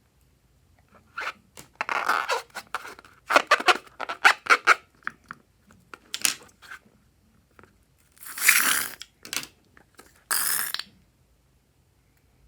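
Slime and rubber balloons being handled and worked by hand: irregular short noisy bursts, a quick run of clicks about three to five seconds in, and two longer bursts near the end.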